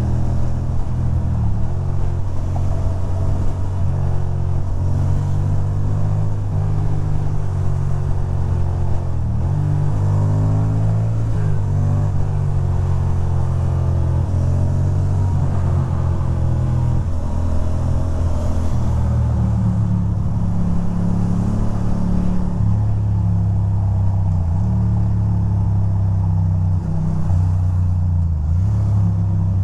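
2006 Ducati Monster 620's air-cooled L-twin engine running at road speed under the rider, its note rising and falling several times as the throttle opens and closes.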